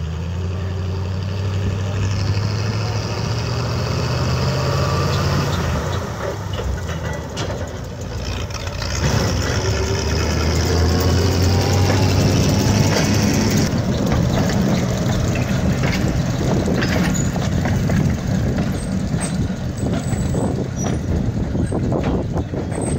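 A small track locomotive's engine revs up and pulls steadily while moving a trolley car. Its steel wheels rumble and clatter on the rails, louder and rougher from about nine seconds in. A high thin squeal runs through the first half and cuts off suddenly about fourteen seconds in.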